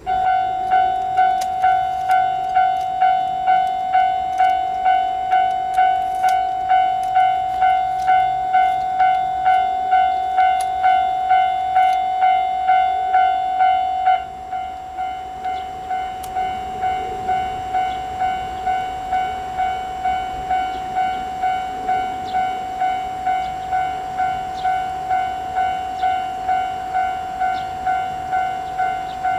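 Japanese railway level-crossing warning bell ringing "kan-kan", a steady pitched ding struck about twice a second. About fourteen seconds in it suddenly becomes quieter and keeps ringing at the same pace.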